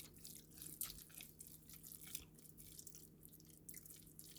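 Near silence: faint, scattered small clicks and crackles from cooking in the kitchen, over a steady low hum.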